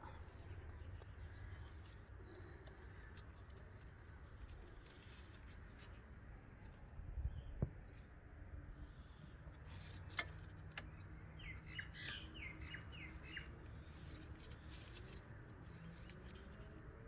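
Faint bird chirps, a quick run of short calls about eleven to fourteen seconds in, with a low thud about seven seconds in and a sharp click about ten seconds in.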